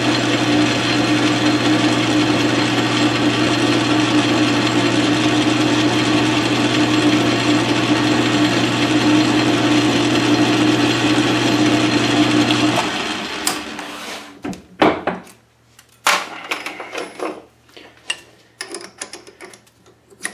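South Bend 13-inch metal lathe running with a steady hum as a drill in the tailstock chuck feeds into the spinning workpiece. About thirteen seconds in the lathe is switched off and the hum stops, followed by scattered metal clinks and knocks.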